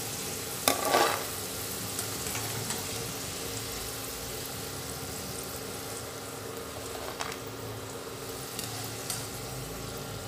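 Cubed potatoes deep-frying in hot oil in a steel pan, a steady sizzle, as the golden-brown batch is scooped out with a wire strainer. A few metal clinks of the strainer against the pan about a second in, and once or twice more later.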